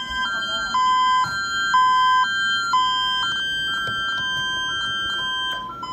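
Home security system's alarm siren sounding: an electronic two-tone siren switching between two pitches about twice a second over a steady higher tone. It cuts off near the end.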